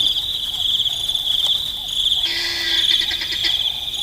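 Crickets chirping in a steady, high, pulsing trill. A second, pulsed call with a lower buzz joins about two seconds in and stops after just over a second.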